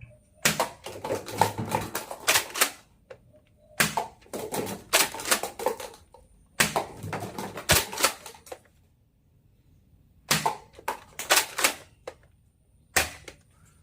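Toy dart blaster's mechanism clicking in about five quick bursts of rapid clicks, with a pause of a second or two before the last bursts.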